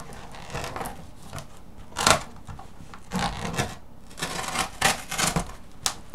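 A cardboard shipping box being handled and shifted, with hands rubbing and scraping across the cardboard in short irregular bursts, the loudest about two seconds in, and a sharp tap near the end.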